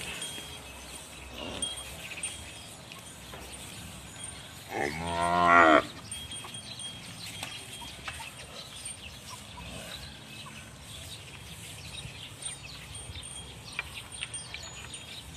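One long moo from zebu-type cattle about five seconds in, rising in pitch and growing louder before it cuts off.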